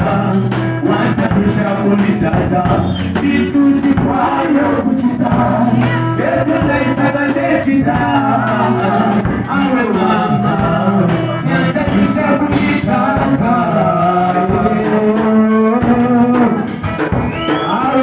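Live gospel band performance: voices singing a melody over amplified guitar, a drum kit keeping a steady beat, and keyboard.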